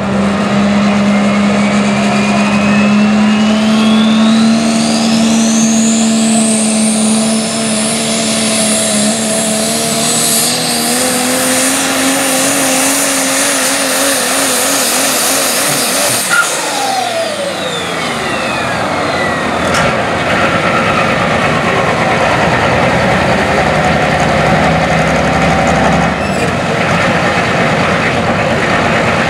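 Super stock diesel 4WD pickup pulling truck's engine at full throttle under load, with a high turbo whine that climbs steeply over the first several seconds and then holds. About halfway through the throttle comes off: the whine and the engine note fall away quickly, and the engine runs on at a lower, steady note.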